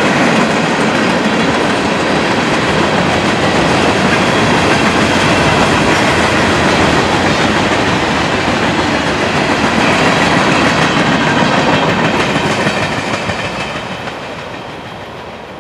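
Freight train cars rolling past, steel wheels running on the rails. The sound fades away over the last few seconds as the end of the train goes by.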